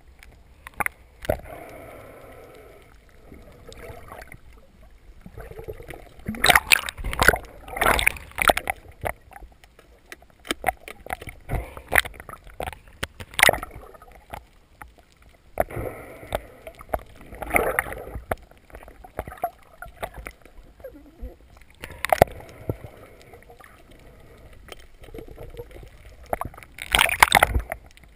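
Water sloshing, splashing and gurgling around a submerged camera as a spearfisher swims with a speargun, in irregular bursts with sharp clicks over a quieter hiss.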